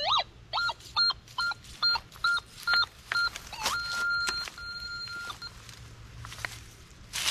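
Metal detector beeping: about six short, even-pitched beeps roughly two a second, then a tone that rises and holds for about a second, and a second held tone just after.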